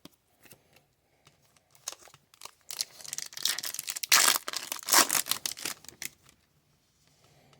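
Crinkling and rustling as Upper Deck hockey trading cards and their pack wrapper are handled. There are a few light ticks at first, then a dense stretch of crackling from about three seconds in to about six seconds in.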